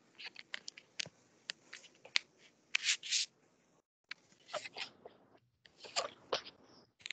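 Pencil drawing on paper: irregular scratchy strokes and sharp clicks and taps, heard over a video call, with the audio cutting out briefly twice.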